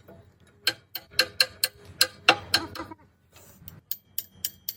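Metal being struck repeatedly, like a hammer on steel: a quick run of about a dozen sharp knocks, some with a short metallic ring, then a few lighter taps near the end.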